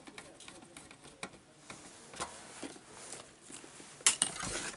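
Light clicks and taps of wires and terminals being handled as mains input leads are connected to a switching power supply, with a sharper click about four seconds in.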